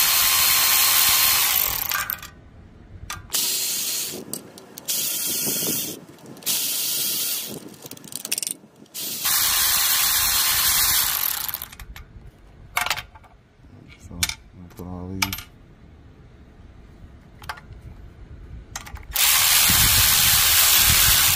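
Cordless power tool with a socket extension spinning out the 11 mm bolts of a Briggs & Stratton 5 HP engine's crankcase cover. It runs in several bursts of one to two seconds each, with light metallic clicks and clinks between them.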